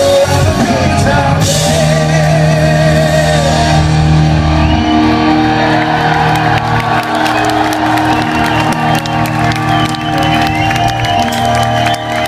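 Live rock band ending a song: a singer holds a wavering note over a sustained chord, which fades about five seconds in. The crowd then cheers, whoops and whistles.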